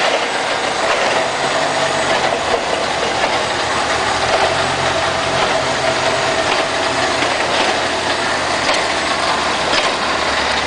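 Plate shearing machine running: a loud, steady mechanical noise with a low hum that shifts now and then and a few faint knocks.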